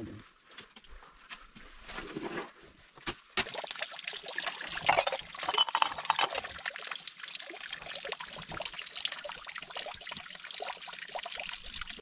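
Liquid pouring and splashing, a dense crackling, gurgling noise that starts about three seconds in after a few scattered small clicks.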